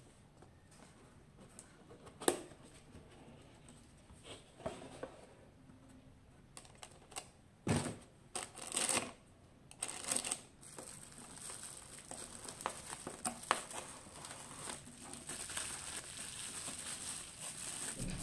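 Cardboard packaging handled with scattered light knocks and scrapes, then plastic bags and bubble wrap crinkling steadily in the hands from about ten seconds in.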